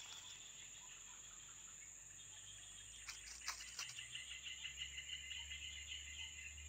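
Faint outdoor ambience: a steady high insect drone, with a few soft clicks a little after three seconds in. From then on a faint rapid pulsing chirp joins it.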